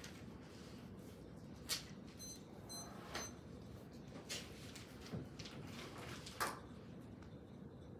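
Quiet handling sounds, with a few light clicks and knocks of papers and objects on a table. A run of three faint, short, high beeps comes about two seconds in. The loudest sound is a short hiss-like burst about six and a half seconds in, as a plastic soda bottle's cap is twisted open.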